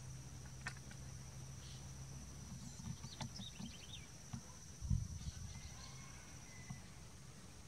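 Outdoor garden ambience: a steady high-pitched insect drone, with a few short bird chirps about three seconds in and some low bumps about five seconds in.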